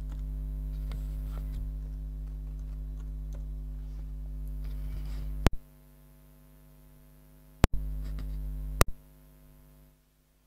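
Steady electrical mains hum with faint keyboard taps over the first few seconds. Three sharp clicks come between about five and nine seconds in; the hum drops much lower after the first and fades to near silence near the end.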